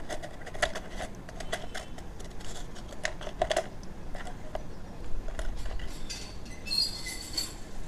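Metal tweezers clicking and scraping against coins and the sides of a plastic cup of toilet-cleaner liquid while fishing the coins out: an irregular run of light clicks and clinks, a few ringing briefly.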